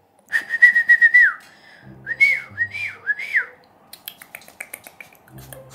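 A person whistling to a puppy: one held high note that drops off at its end, then three short rising-and-falling whistles, followed by a few light clicks.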